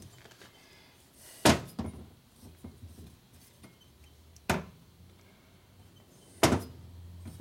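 Three sharp metal knocks a few seconds apart, with a few lighter clicks between: a valve spring compressor being handled and fitted onto a cast-iron Harley-Davidson Ironhead Sportster cylinder head.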